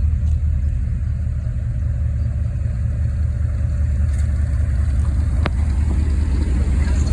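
Steady low rumble of a diesel train engine, with one short sharp click about five and a half seconds in.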